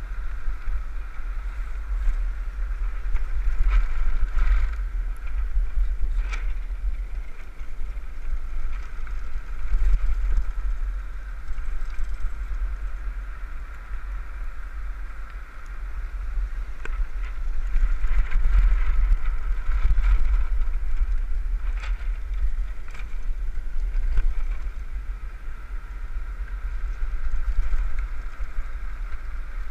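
Wind buffeting the microphone of a land yacht sailing fast over hard beach sand, rumbling in surges, over a steady higher hum of the rolling wheels, with scattered clicks and rattles.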